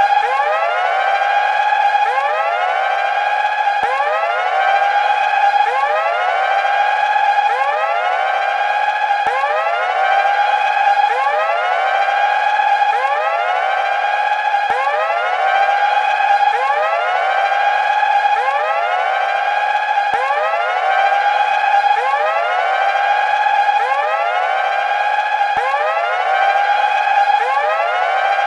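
Electronic alarm siren sounding a continuous run of rising 'whoop' sweeps, each climbing in pitch and then levelling off, repeating about every second and a half without a pause.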